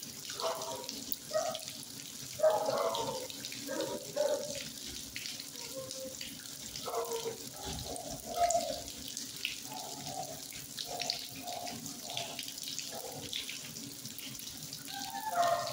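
Steady rush of running or splashing water, with short muffled sounds coming and going over it.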